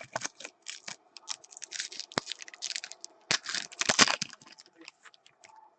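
Trading cards and foil pack wrappers being handled: a run of crinkles, snaps and rustling clicks, with louder stretches about two seconds in and again about three and a half to four seconds in.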